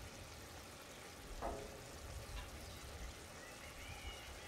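Black rice in squid-ink seafood broth bubbling and sizzling in a steel paella pan over wood embers: a faint, steady hiss of simmering, as the rice finishes cooking on low heat.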